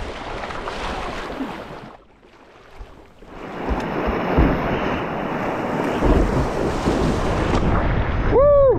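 River water rushing, with wind buffeting the GoPro microphone; it drops low about two seconds in, then comes back steady. Near the end, a short pitched call that rises and then falls.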